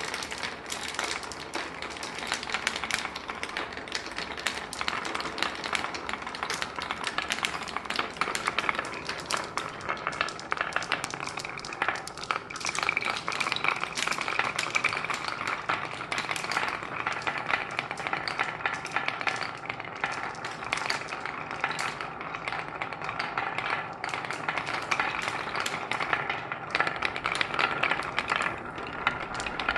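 Many marbles rolling and clattering down a marble run: a dense, unbroken stream of clicks and rattles over a steady rolling whirr.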